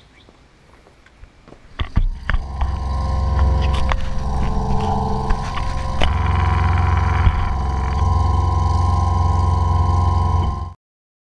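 Mini excavator's diesel engine running steadily, heard from the operator's seat, with a few sharp knocks from the machine. It comes in about two seconds in and cuts off suddenly near the end.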